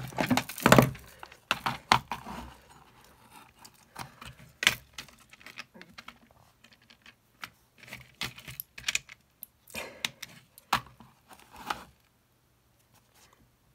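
Irregular clicks, taps and short scrapes of small hand tools working at the shell of an Apple EarPods Lightning connector, trying to get the welded casing open.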